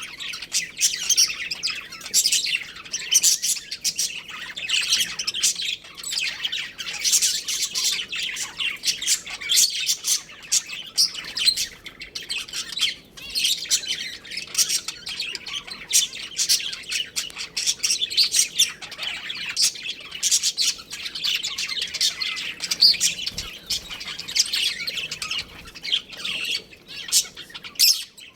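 Several budgerigars chirping and chattering continuously, many short high calls overlapping with no pause.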